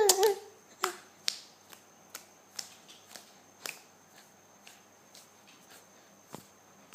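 A baby's short vocal sound that ends within the first half second, followed by a series of small sharp clicks about two a second, growing fainter.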